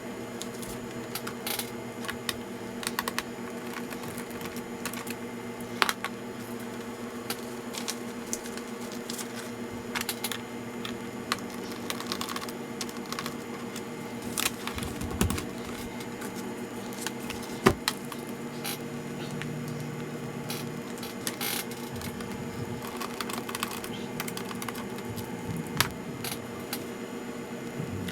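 Irregular small clicks and taps of tools, screws and plastic as a laptop is handled and taken apart, a few louder knocks among them, over a steady low hum.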